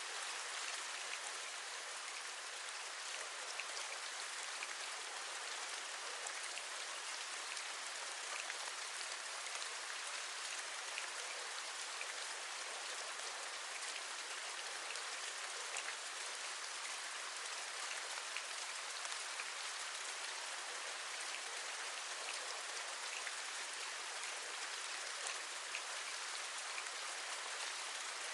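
Steady rain, an even hiss of falling water sprinkled with many small scattered drop ticks.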